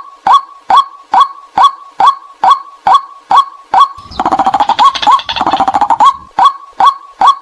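White-breasted waterhen decoy call: repeated short 'kwak' notes, about two a second. About four seconds in, two seconds of faster, noisier chattering interrupt the notes before the steady series resumes.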